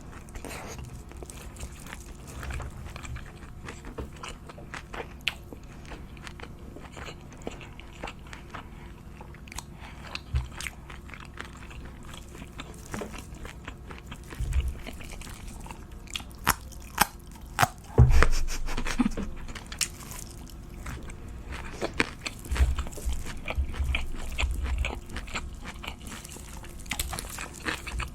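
Close-miked eating: a person taking crunchy bites and chewing, in a run of short crunches and clicks, with the loudest bites a little past halfway.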